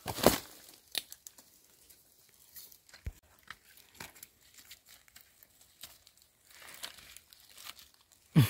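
Sparse short crackles and rustles of dry leaf litter and twigs, with one louder crack just after the start and quiet gaps between.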